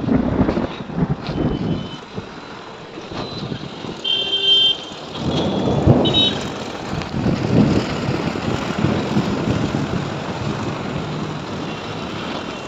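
Thunder rolling in a heavy rainstorm, with several low rumbles swelling and fading over a steady wash of rain and traffic noise. Brief high tones break in around four and six seconds.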